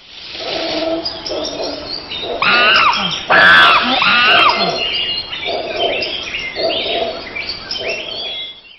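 Loud run of chirping, curving animal calls, many in a row, that cuts off suddenly near the end.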